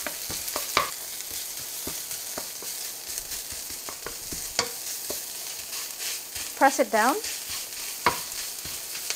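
Shallots, garlic and red curry paste sizzling in hot oil in a stainless steel wok on high heat, stirred with a wooden spoon: a steady sizzling hiss with frequent clicks and scrapes of the spoon against the wok. A brief pitched sound cuts in about seven seconds in.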